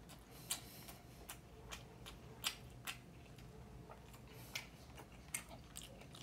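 A person chewing food with the mouth close to the microphone: soft, irregular wet mouth clicks and lip smacks, about a dozen in all, the sharpest about two and a half seconds in.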